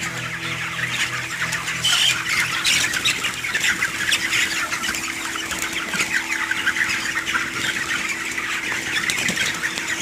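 Large flock of broiler chickens in a poultry shed: many overlapping cheeps, clucks and squawks with bursts of wing flapping. A steady low hum comes in about a third of the way through.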